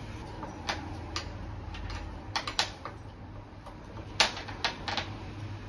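Scattered sharp clicks and taps, about seven in all, the loudest a little past the middle, as the fittings and valve of a central-heating filling loop are handled, over a low steady hum.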